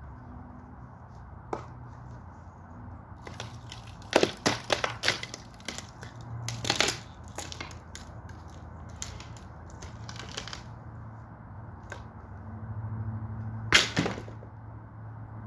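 A wooden bed frame being broken apart by hand and foot: irregular sharp cracks and snaps of splitting wood, several in quick succession, with the loudest crack near the end.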